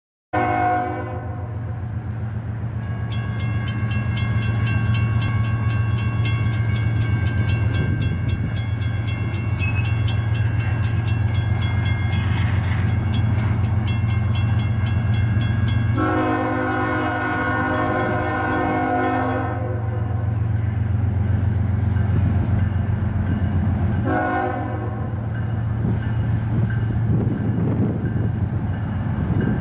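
CSX GE ES44AH diesel-electric locomotive sounding its air horn as it approaches, pulling a freight train. The horn gives a long blast of nearly twenty seconds, a short blast, and a new blast at the end, over the steady low drone of the diesel engine.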